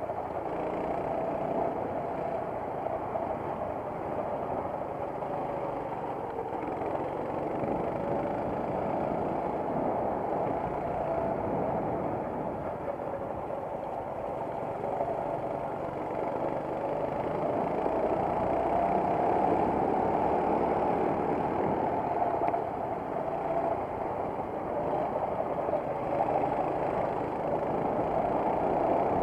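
Racing kart engine running flat out, heard from on board the kart; its note rises and falls as the kart accelerates and slows through corners, a little louder near the end.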